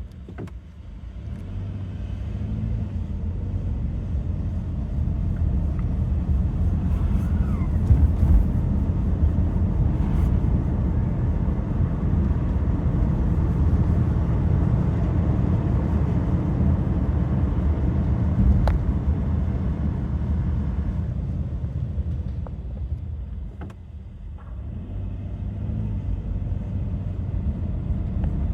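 2015 Subaru Forester's engine and CVT driving at low speed. The drone builds and holds, and about 20 seconds in, while coasting off the throttle, the CVT gives a loud engine-braking sound just before the rpm drops, as if disengaging into neutral. The owner believes this is not normal.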